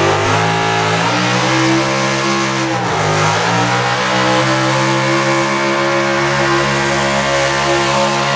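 1970s Ford four-wheel-drive pickup's engine running hard at high revs as it drags a pulling sled. The revs dip briefly about three seconds in, climb back and then hold steady.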